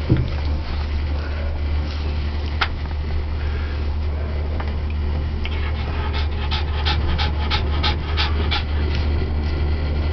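Shiba inu panting with its tongue out, a run of quick breaths about four a second around the middle, over a steady low hum.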